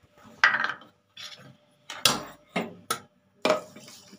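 Several sharp knocks and clatters of kitchen containers and utensils handled on a stone counter. Near the end, water is poured from a jug into a bowl of flour and sugar for pua batter.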